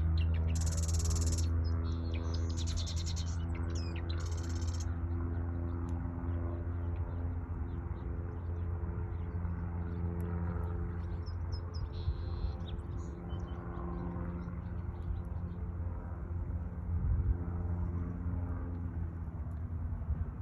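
A bird chirping in short calls, with a few louder high bursts in the first five seconds, over a steady low hum.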